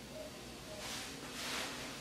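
Plastic bubble wrap being handled, two short rustles about a second in.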